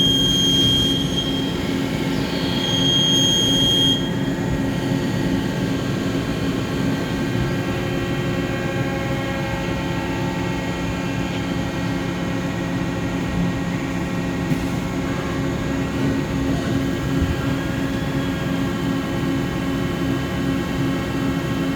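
Mori Seiki SL-154SY CNC lathe running its part program on 304 stainless steel, coolant on: a steady machine hum and whine made of many held tones. Two short high-pitched squeals sound in the first four seconds.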